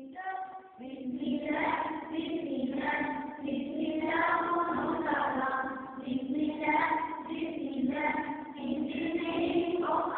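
A group of schoolchildren singing a song together, in phrases of about two seconds with short breaks for breath.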